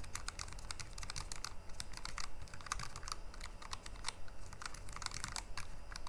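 Typing on a Logitech G915 low-profile mechanical keyboard with GL Linear switches: a quick, even run of light key clicks as keys are pressed and released, really pretty quiet.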